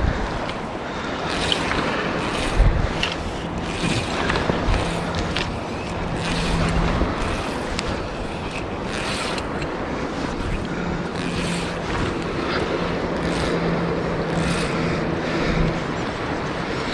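A shallow stream running over stones, with wind buffeting the microphone, and short hisses about every second.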